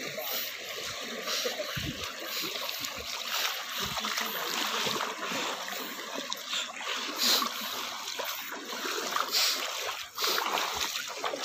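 Feet wading through a shallow, rocky river, splashing irregularly, over the steady rush of the stream running across stones.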